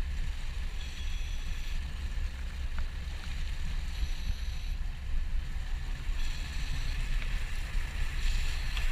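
Motorboat underway: a steady, heavy low rumble of engine and water rushing past the hull, with wind buffeting the microphone.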